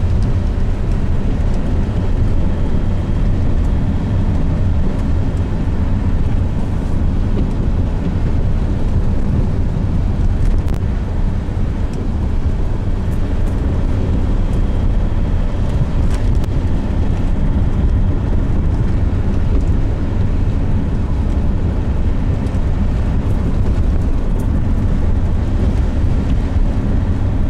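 Car driving steadily along a flat road: a continuous low rumble of engine and tyre noise.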